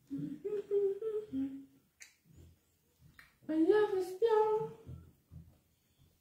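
A person humming, two short phrases of about a second and a half each that step up and down in pitch, the first at the start and the second around the middle, with a few faint clicks between them.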